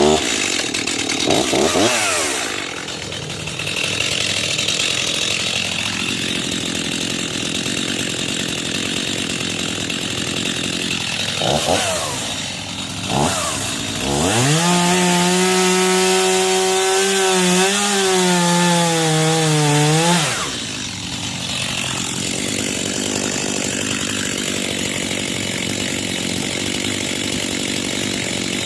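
Chainsaw running and cutting through the trunk of a storm-downed tree to make firewood. It revs briefly a couple of times, then runs at a high, steady pitch for about six seconds in the middle before dropping back.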